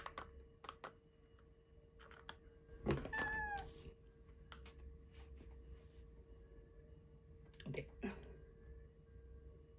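A domestic cat meows once, briefly, about three seconds in, a short call that dips slightly in pitch. Light clicks and knocks and a steady faint hum sit around it.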